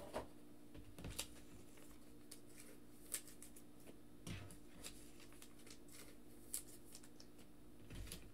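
Faint desk handling noise: about half a dozen soft, scattered clicks and light rustles over a steady low hum.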